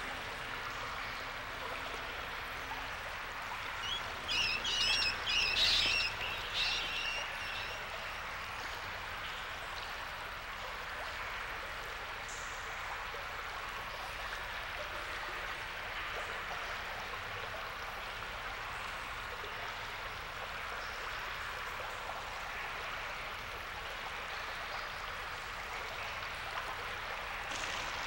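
Steady running water, with a flurry of high bird chirps starting about four seconds in and lasting a few seconds.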